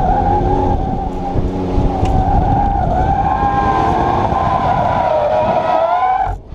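Porsche 997's flat-six engine pulling hard through an autocross course while the tyres squeal through the turns, the squeal wavering in pitch and rising near the end. The sound cuts off suddenly just before the end.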